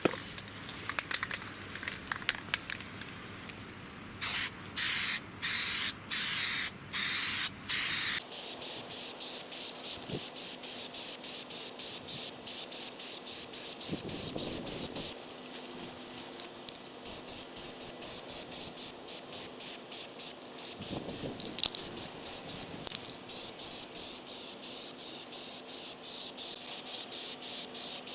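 Aerosol spray can hissing in bursts: five loud half-second sprays from about four to eight seconds in, then many quick, quieter bursts, about three a second, for the rest of the time.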